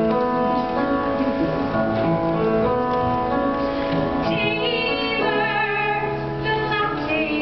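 A woman singing a musical-theatre song with piano accompaniment; her held notes have vibrato, most clearly from about four seconds in.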